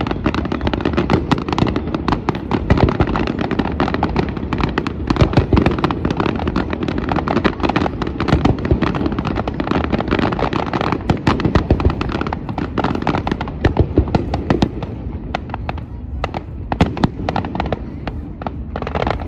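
Aerial fireworks display: a dense barrage of cracks and bangs over a continuous low rumble, thinning to scattered separate cracks near the end.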